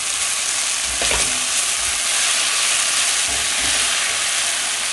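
Sliced onions, okra and peppers sizzling steadily in hot oil in a stainless steel pan, stirred with a silicone spatula that knocks softly against the pan a few times.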